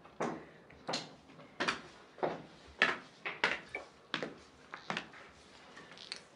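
Footsteps on a hard floor at an even walking pace, about one sharp step every two-thirds of a second.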